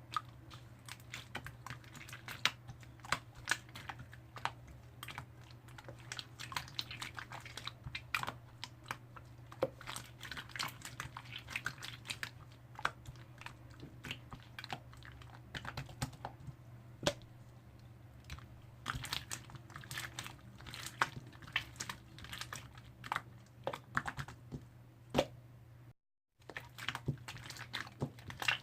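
Purple slime being squeezed and pressed by hand, making a dense, irregular run of small sticky clicks and pops. The sound cuts out completely for a moment near the end.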